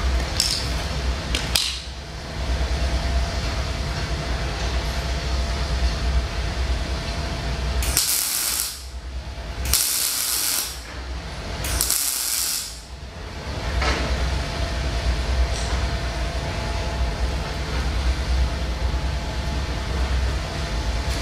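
Electric arc welding on rebar: three short crackling, hissing tack welds of about a second each, a few seconds apart in the middle, over a steady low hum. A few light clicks near the start.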